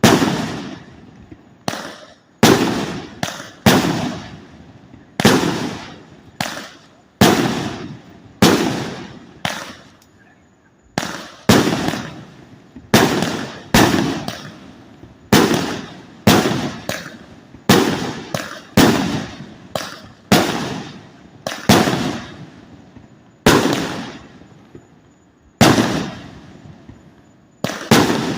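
A 100-shot firework salute cake firing: a rapid, irregular string of loud bangs, about one to two a second, each with a short trailing echo.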